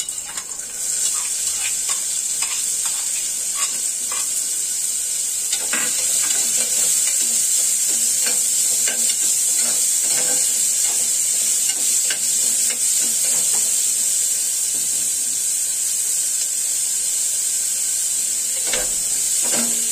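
Chopped onion sizzling steadily in hot ghee in a pressure cooker, the sizzle starting as the onion goes in. A steel spoon scrapes and clicks against the pot as the onion is stirred and fried.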